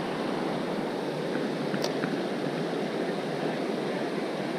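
River water rushing steadily over rocks, an even unbroken rush, with one faint tick about two seconds in.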